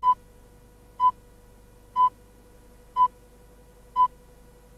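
Film countdown leader beeping: a short, single-pitched beep once a second, five times, over a faint steady hum.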